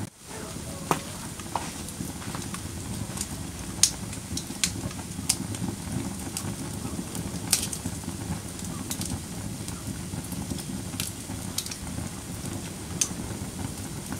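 Wood fire crackling in a fireplace: a steady rustle of burning with sharp pops scattered irregularly through it, the loudest about four and seven and a half seconds in.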